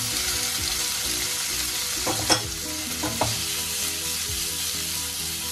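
Paneer cubes sizzling in hot oil in a non-stick frying pan as they start to sauté, a steady frying hiss. A few light knocks come about two seconds in and again a second later.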